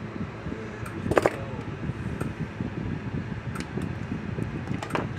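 Steady hum of a fan running, with a few light clicks and taps from small wire terminals and pliers being handled, the loudest about a second in.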